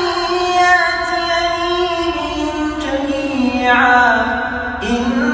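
A young man's voice chanting Quran recitation in the melodic tajweed style. He draws one long phrase out on held notes that slide slowly downward in pitch, and a new phrase begins near the end.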